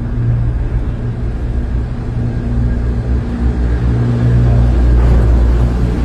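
Gondola cable car cabin running into its terminal station: a steady low rumble and hum from the station's overhead wheels and haul machinery, growing a little louder after about four seconds.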